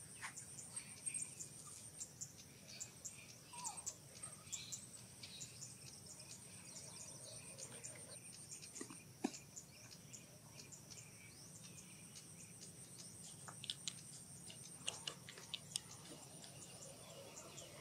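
Faint outdoor ambience: a steady high-pitched insect drone with many short, scattered bird-like chirps and ticks.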